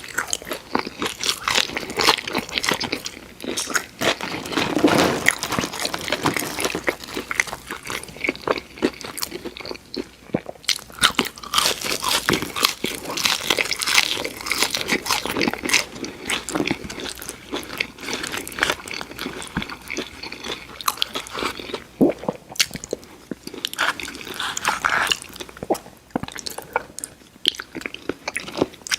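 A person eating crispy fried food: repeated crunchy bites and chewing, dense and irregular, from fast-food fried chicken and fries.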